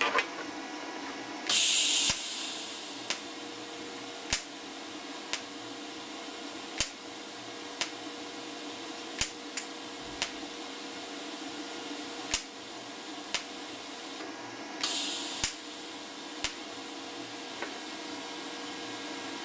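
TIG welder in tack-weld mode, set to one-second tacks, striking its arc again and again. There is a short loud hiss near the start and again about three-quarters through. Sharp ticks come roughly once a second over a steady hum.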